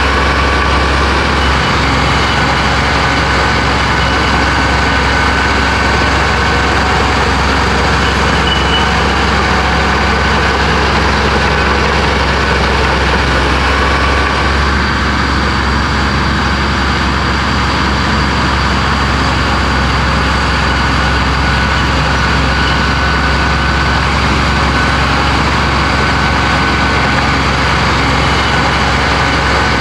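Heavy diesel engine of an earthmoving machine running steadily, with a faint steady high whine over it.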